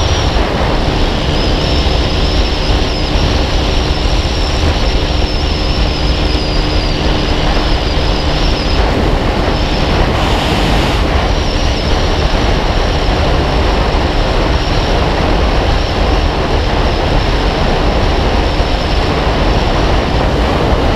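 Honda CG Titan 150's single-cylinder four-stroke engine running steadily at road speed, mixed with the rush of wind and road noise on an onboard microphone.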